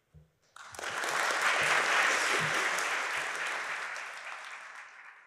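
Audience applauding, starting about half a second in, loudest in the first couple of seconds and then fading away near the end.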